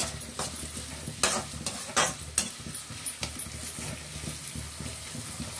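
Chopped onions frying in oil in a steel kadhai, sizzling steadily, while a metal spatula stirs and scrapes against the pan. Sharp scrapes come in quick succession through the first three seconds or so, then ease off to the sizzle.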